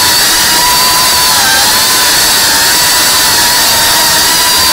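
Cinewhoop FPV drone's brushless motors and ducted propellers whining loudly as it flies. The pitch dips briefly about one and a half seconds in.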